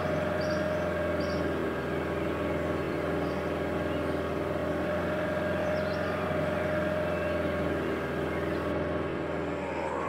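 Boat motor running steadily with a constant engine drone, its pitch sagging near the end.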